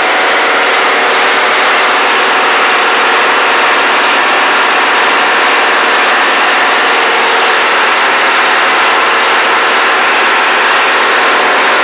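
IFA truck engine running steadily at its rated speed, a loud, even high-revving sound. Its ignition advance at this speed measures 26 degrees against the required 31, so the timing is too retarded.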